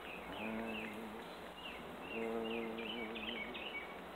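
A man humming two long, steady notes, the second louder, with repeated high, falling chirps in the background.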